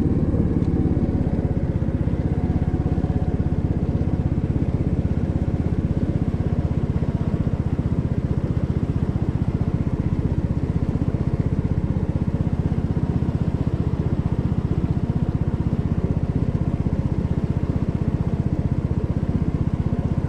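Small boat engine running steadily at a constant speed while under way.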